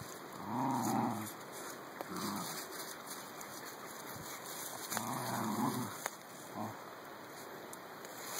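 Two small terriers growling in play during a tug-of-war over a stick: several low growls, the longest near the start and about five seconds in, with short ones between.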